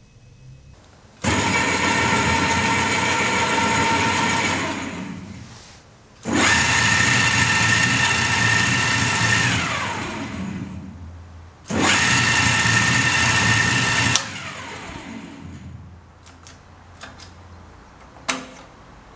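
REMS Unimat 75 thread-cutting machine running in three spells of about three seconds each, a steady mechanical whine whose pitch falls away as the machine stops each time. A few light clicks and one sharp knock follow near the end.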